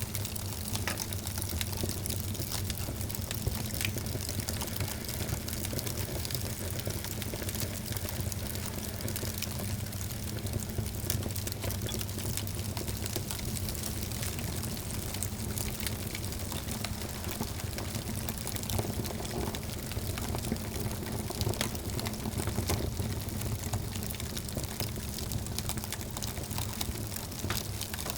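Wood fire in a fireplace burning steadily, with frequent small crackles and pops over a low rumble.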